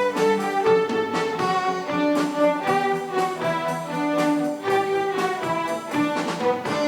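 A live string ensemble, violins and cello, playing a melodic piece in held, flowing notes.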